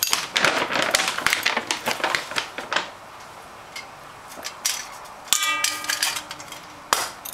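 Metal hand-crank flour sifter rattling with fast metallic clicks as cocoa powder is sifted into a steel bowl, for about the first three seconds. About five seconds in comes a steady squeaky tone for about a second and a half, and a single sharp click just before the end.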